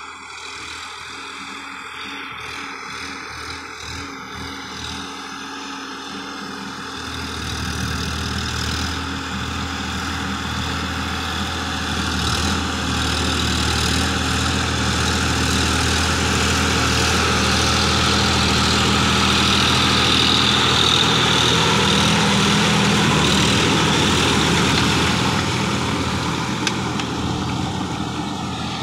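Sonalika 50 hp tractor's diesel engine running under load, driving a rotary tiller through a wet, weed-covered field. It grows louder from about a quarter of the way in as the tractor comes closer, holds loudest through the middle, then fades near the end.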